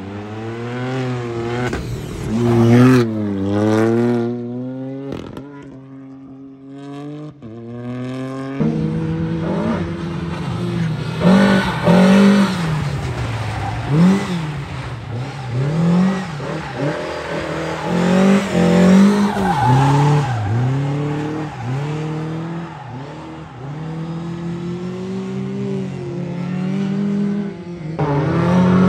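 Rally car engines driven hard, revving up through the gears and falling back again and again as they lift off and change gear. A few sharp cracks come in a lull about six to eight seconds in.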